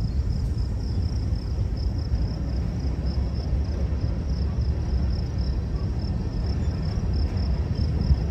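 Low, steady rumble of a Union Pacific diesel locomotive during switching, with an insect chirping high and evenly, about four times a second.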